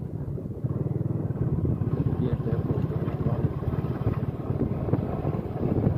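Motorcycle engine running steadily under way, a fast, even low pulsing that gets louder about a second in.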